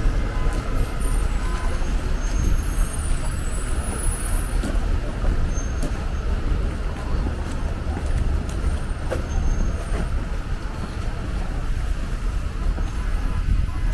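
City street traffic: a steady low engine rumble from vehicles close by, with a few faint clicks and knocks.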